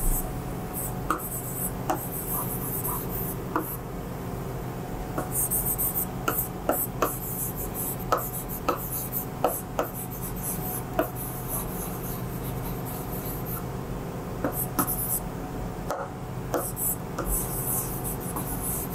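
Pen writing on the aluminium surface of a LEAD interactive whiteboard: repeated bursts of short, scratchy strokes and light taps of the pen tip as letters are written.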